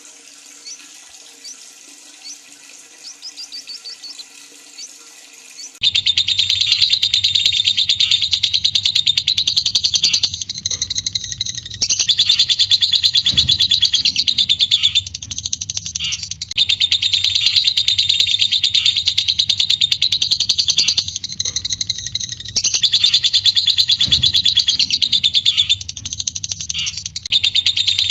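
Lovebird giving its 'ngekek' call: loud, very rapid, continuous high chattering in long bouts of several seconds each, with short breaks between them. For about the first six seconds there is only softer chirping, and then the loud chatter starts.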